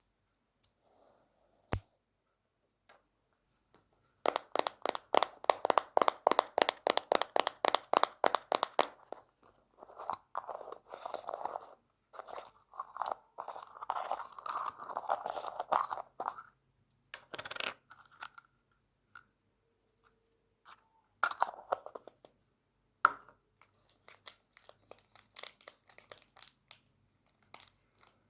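Close-miked ASMR handling of makeup items: a rapid run of sharp taps and clicks, then bursts of scratchy crinkling and rustling, with a few scattered taps near the end.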